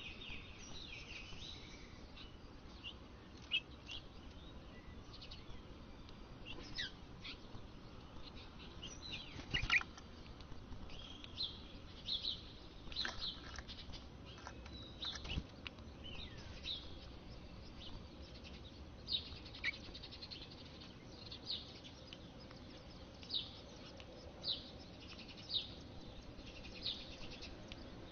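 House finches at the nest: short, high chirps repeated throughout, coming about once a second toward the end, as nestlings beg and the parents come in to feed them. Two thumps stand out near the middle.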